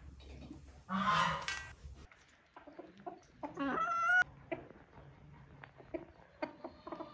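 A short rough scraping about a second in as a pumpkin is hollowed out, then chickens: one drawn-out, wavering call near the middle followed by scattered short clucks.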